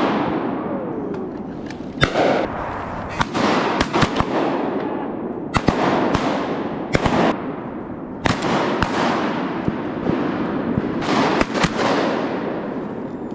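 A volley of shotgun shots from several hunters firing at ducks, about a dozen blasts at irregular intervals, some close together. Each shot trails a long echo.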